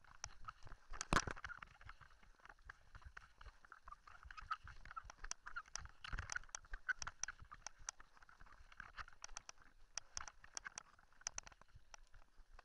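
Mountain bike riding over a loose gravel dirt track: an irregular run of clicks, knocks and rattles from stones under the tyres and the bike jolting, with one louder knock about a second in.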